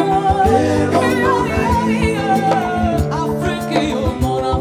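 A woman singing a wavering melody with a live band, bass guitar and drums keeping a steady beat.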